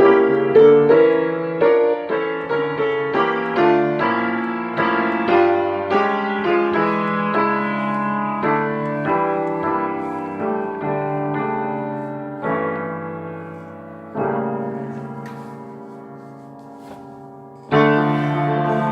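Piano music: a run of notes and chords over the first half, then slower held chords, with a louder chord struck near the end.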